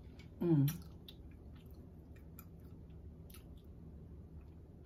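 A person chewing food with the mouth closed: soft, wet mouth clicks. About half a second in there is a short, louder hum that falls in pitch.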